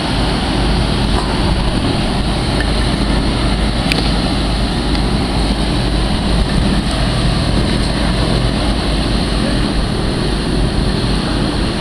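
Griffon 12000TD hovercraft running up on its air cushion and slowly manoeuvring on the pad: steady, loud noise of its diesel engines, lift fans and twin ducted propellers.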